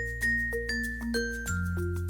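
Background music: a bright mallet-percussion melody of struck notes stepping downward in pitch, over a steady sustained bass.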